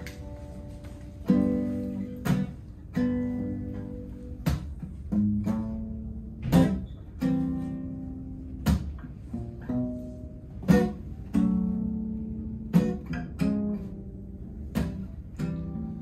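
Acoustic band playing an instrumental intro: two acoustic guitars strumming chords over a bass guitar, with a cajón beating out sharp hits every second or two.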